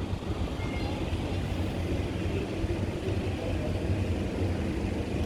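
Steady low outdoor rumble with an even hiss above it and no distinct events.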